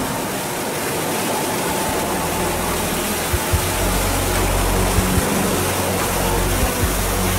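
Street sweeper truck working with its rotating side brush down and water spraying: a steady rushing hiss over a low engine drone, with a few faint knocks.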